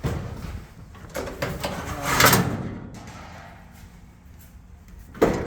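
Metal gas-grill parts being handled, with a few clunks and a sliding scrape. The loudest comes about two seconds in, and there is a sharp knock near the end.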